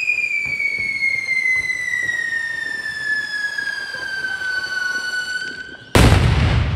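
Firework whistle: one piercing whistling tone that falls slowly in pitch, cut off about six seconds in by a loud bang.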